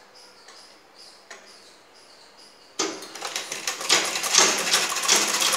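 A sewing machine stitching cotton fabric, starting suddenly about halfway in as a fast, steady run of rapid ticking. Before that, only a few faint ticks.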